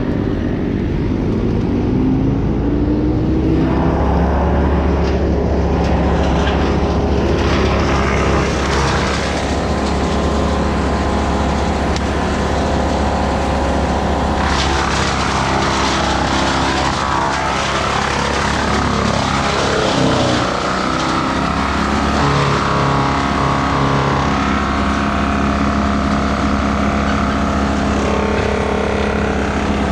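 An engine running steadily, its pitch rising over the first few seconds. A harsher noise joins it about four seconds in and grows stronger about halfway through.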